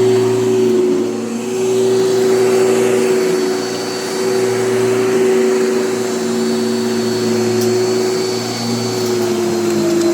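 Bosch electric lawn mower running, its motor giving a steady hum and whine, with the pitch sagging slightly near the end.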